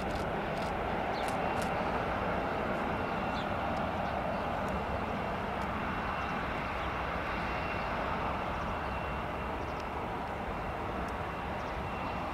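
Boeing 737's turbofan engines running as the airliner taxis past: a steady jet rumble and hiss with a faint, steady high whine over it.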